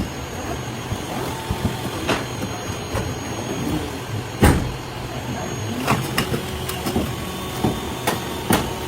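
Factory machinery running with a steady low hum, overlaid by irregular knocks and clanks, the loudest about halfway through.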